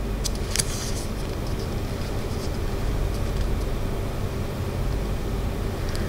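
Steady low background rumble, with brief papery rustles of a small instruction booklet's pages being handled about half a second in and again near the end.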